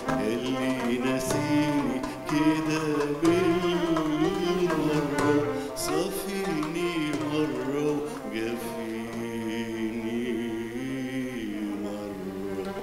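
A man singing a slow, ornamented melody into a microphone, his voice gliding and wavering between notes, with violin accompaniment.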